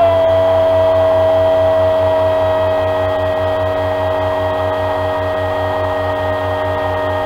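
A football commentator's long drawn-out 'gol' shout, held on one pitch and sinking slightly, celebrating a Real Madrid goal. A fast low pulse runs steadily beneath it.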